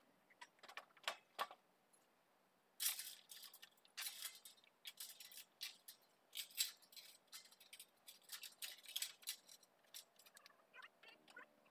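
Faint, scattered short knocks and clicks, some in quick clusters.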